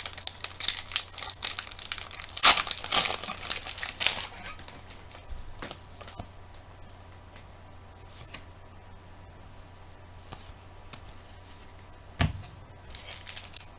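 Trading card pack wrapper being torn open and crinkled, busiest in the first few seconds, then quieter handling of the cards, with a single soft thump near the end before the crinkling starts again.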